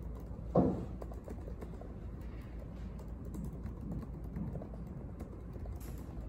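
Typing on a laptop keyboard: a run of light key clicks, with one much louder low thump about half a second in.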